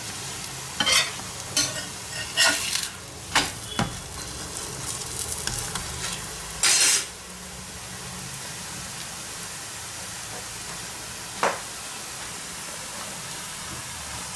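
Paratha sizzling in ghee on a hot tawa, with a spatula scraping and pressing against the griddle several times in the first seven seconds and once more later on. The flatbread is being roasted on its second side until browned.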